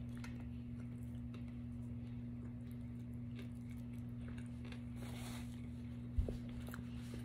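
A person chewing a mouthful of brisket sandwich, with soft wet chewing sounds over a steady low hum. A single dull thump comes about six seconds in.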